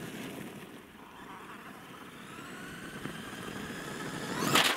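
Electric motor and drivetrain of an Axial SMT10 RC monster truck whining, rising in pitch and growing louder as it approaches. Near the end there is a loud rushing burst of tyres on gravel.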